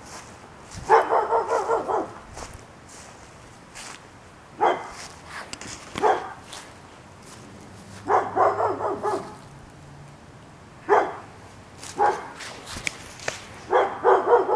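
A dog barking repeatedly, sometimes a single bark and sometimes a quick run of several, every few seconds.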